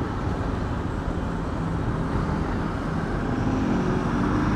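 Small motorcycle riding slowly in city traffic: its engine running under a steady haze of road and wind noise, with the low drone of nearby traffic growing a little louder near the end.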